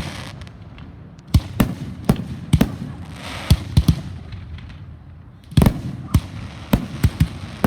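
Fireworks going off: about a dozen sharp bangs at irregular intervals, some in quick pairs, over a low rumble, with a brief hiss about three seconds in.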